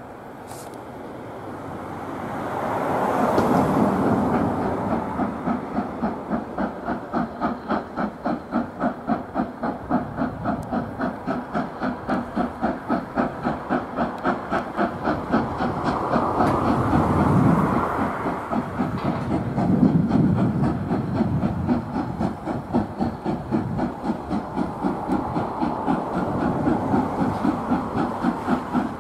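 Southern Railway S15 class steam locomotive No. 847 working towards the listener, its exhaust beating in a fast, even rhythm over a steady hiss of steam. The sound swells over the first few seconds and then stays loud.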